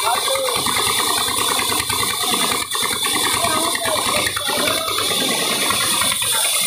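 Large belt-driven band saw running and cutting a log, a loud, steady mechanical rattle with a thin high whine running through it.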